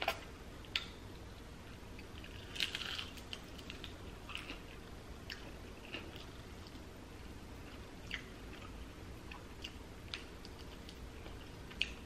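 A person biting and chewing crispy fried chicken, with faint scattered crunches and mouth clicks. A louder cluster of crunches comes about two and a half seconds in.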